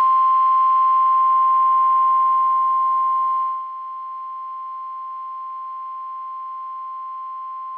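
NOAA Weather Radio 1050 Hz warning alarm tone: one long steady beep over faint radio hiss, dropping sharply in level about three and a half seconds in. It signals that a warning message, here a severe thunderstorm warning, is about to be read.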